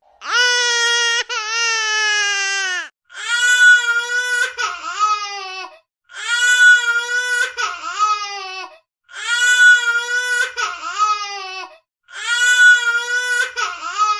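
A cartoon girl's voice crying 'waa, boo hoo': one long high-pitched wail, then the same cry four times about every three seconds, each a held wail that drops in pitch at its end.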